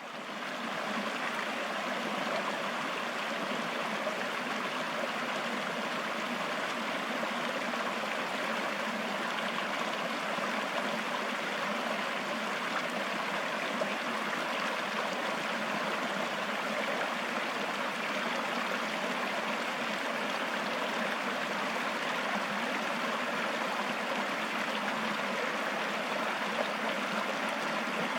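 Mountain stream flowing: a steady rush of running water that fades in at the start and then holds even.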